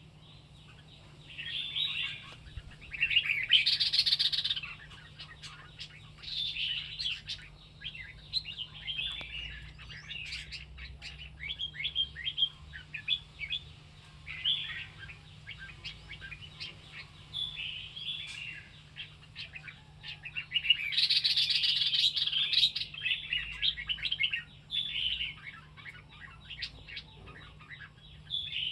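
White-rumped shama, a wild-caught bird just through its first moult in captivity, singing in a run of short, varied phrases. There are two louder, noisier passages, about four seconds in and about twenty-one seconds in.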